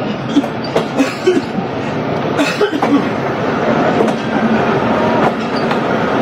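Passenger coaches of a departing train rolling slowly, heard from alongside the carriage: a steady running rumble with irregular knocks and clatter from the wheels and coach.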